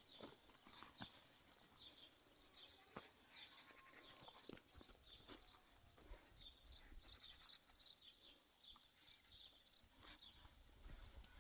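Faint animal sounds: many short high chirps repeating throughout, with scattered soft clicks.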